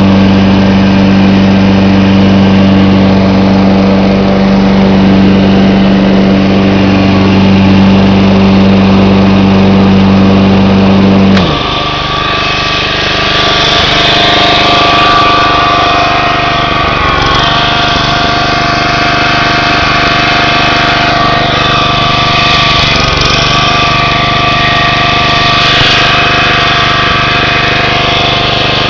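A 1995 John Deere 14SE walk-behind lawn mower's engine runs steadily on a strong low note. About eleven seconds in, that note drops away abruptly and the sound turns rougher and higher, its pitch wavering as the mower is pushed through the grass.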